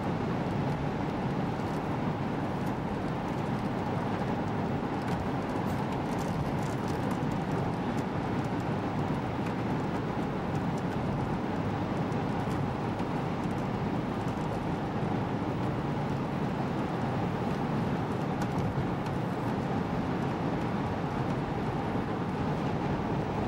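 Steady engine and tyre noise heard from inside a car cruising along a paved highway.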